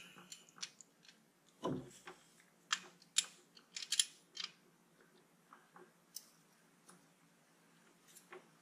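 Irregular metallic clicks and taps of a ring spanner and screwdriver working a valve rocker's adjusting screw and locknut on a Land Rover Series diesel engine, while the valve clearance is being set. A duller knock comes about two seconds in, and the clicks thin out in the second half.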